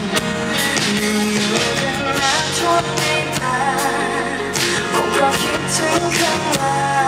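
Live song: a woman singing over acoustic guitar.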